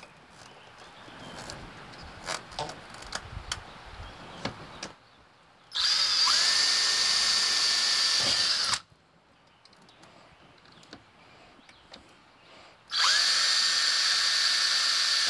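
A DeWalt cordless drill runs at speed twice, each time for about three seconds, spinning up and winding down in pitch. Light clicks and taps come before it.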